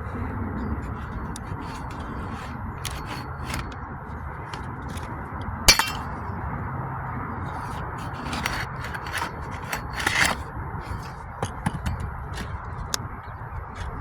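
Metal shingle ripper worked under wood roof shakes, scraping and clinking with scattered sharp taps and one loud metallic strike about six seconds in, as it hooks a hidden fastener and meets resistance.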